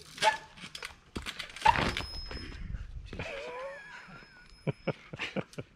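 Trials bike tyres and frame knocking and clicking on boulders as the rider hops across them, with one loud thump a little under two seconds in.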